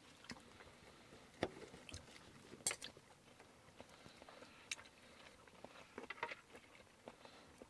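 Faint, scattered clicks and scrapes of metal knives and forks on plates as sausage is cut, with a couple of sharper taps about a second and a half and nearly three seconds in.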